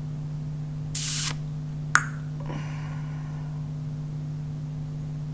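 A steady low hum, broken by a short hiss about a second in and a single sharp click just before two seconds.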